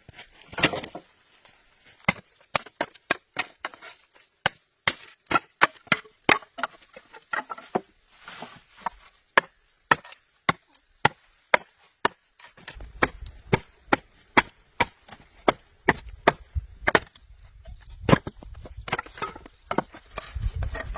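Wood being chopped with a blade: a long series of sharp knocks, often about two a second, broken by short pauses. A low rumble runs underneath in the second half.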